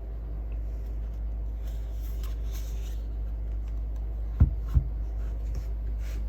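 Hands handling product packaging: light scratchy rustling, then two sharp knocks about half a second apart past the middle, over a steady low hum.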